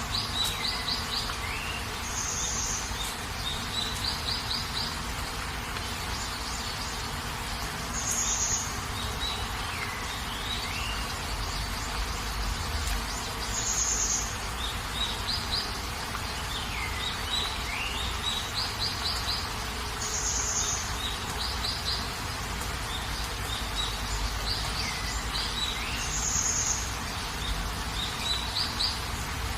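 Steady rain with birds calling over it: a short high chirp, a quick trill and a sweeping whistle that recur in the same pattern about every six seconds.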